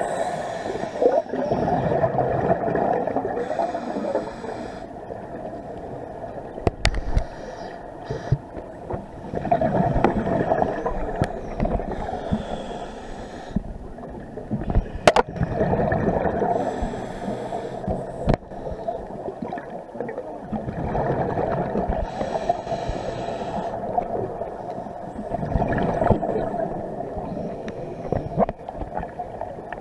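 Scuba diver breathing through a regulator underwater: exhaled bubbles gurgle out in a burst about every five or six seconds, with quieter inhalation hiss between them. Two sharp clicks come partway through.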